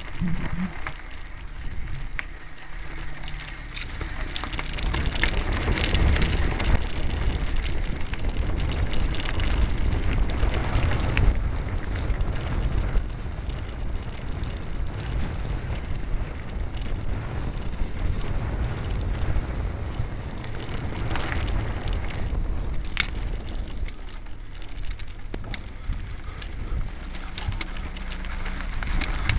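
Mountain bike riding over a gravel and dirt trail: wind buffeting the microphone with a heavy rumble, tyres crunching over loose stones and the bike rattling, with scattered sharp knocks.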